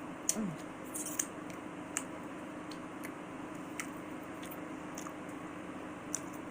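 Chewing and mouth sounds while eating: scattered soft, wet clicks and smacks every second or so, with a short falling "mm" hum about half a second in.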